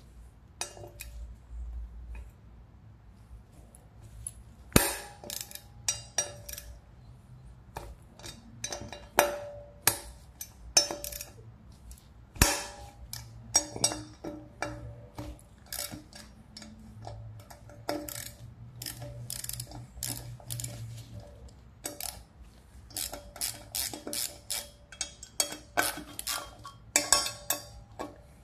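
Irregular metallic clinks and clicks of hand tools and metal mini bike sprocket parts being handled, with a few sharper knocks that ring briefly.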